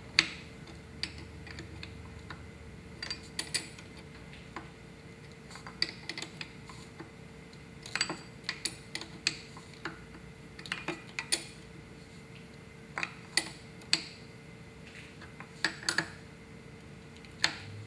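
A wrench clinking and clicking against the metal fuel pressure sending unit as it is tightened into the diesel fuel filter housing. The sharp metallic clinks come irregularly, often two or three close together, over a steady faint hum.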